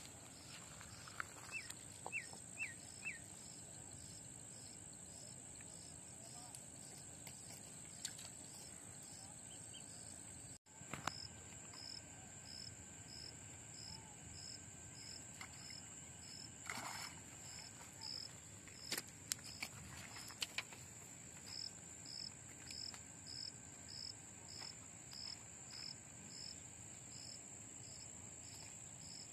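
Insects calling in the open: a steady high-pitched drone with a regular chirping pulse over it, two or three chirps a second, and now and then a faint click or rustle.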